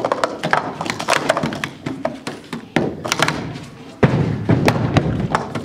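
Plastic sport stacking cups clattering and clacking in quick runs as stackers build and collapse pyramids on a stacking mat, with a burst of louder clacking about four seconds in.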